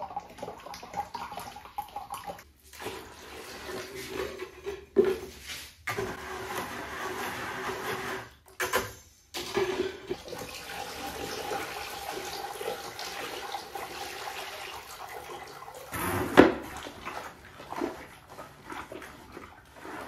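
Liquid ceramic glaze and water pouring and sloshing through a fine mesh sieve into a bucket while a hand works the slurry. It breaks off briefly a few times, and there is a sudden loud hit about sixteen seconds in.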